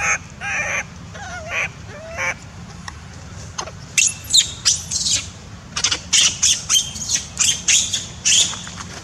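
Baby long-tailed macaque crying in distress: a few short wavering whimpers, then from about four seconds in a rapid run of loud, shrill screams, about three a second.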